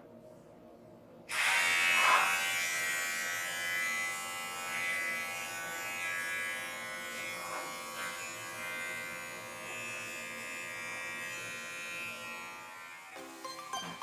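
Cordless electric hair clipper switched on about a second in and running with a steady buzz that swells and dips a little in loudness, then stopping near the end.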